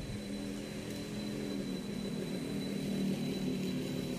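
A vehicle engine running nearby: a steady low hum, with a thin, steady high-pitched whine above it.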